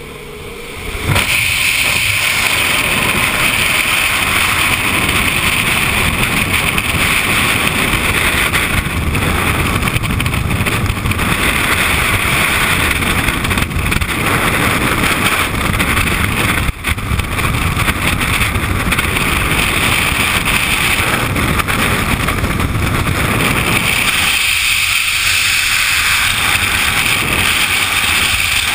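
Loud, steady freefall wind rushing over a skydiver's helmet-mounted camera, starting suddenly about a second in as the jumpers leave the aircraft; before it, the quieter drone of the jump plane's cabin.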